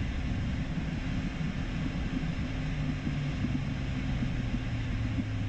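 Steady cockpit noise of an Embraer Phenom 300E's twin turbofan engines at low taxi thrust as the jet rolls onto the runway: a continuous low rumble, with a faint hum that slides slightly lower from about halfway through.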